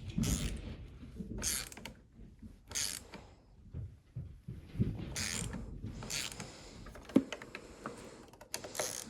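Hand ratchet clicking in short bursts, about six strokes spaced a second or more apart, as screws holding a lawnmower carburetor are tightened down.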